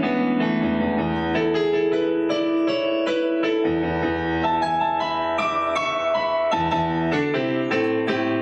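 Instrumental break of a song, led by a piano-sounding keyboard striking chords and melody notes over low held bass notes.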